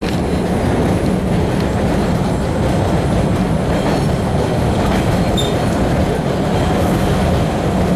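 Inside an MBTA Red Line subway car in motion: the steady, even rumble of the car running on the rails, with a brief high squeak about five seconds in.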